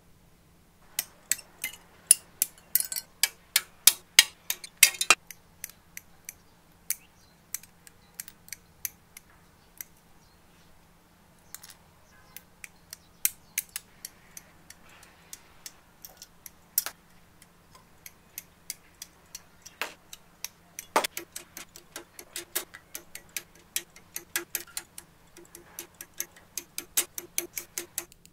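Hobby side cutters snipping small parts off the plastic sprues of a model car kit, with the plastic runners clicking as they are handled: a long series of sharp clicks in uneven flurries, with a lull in the middle.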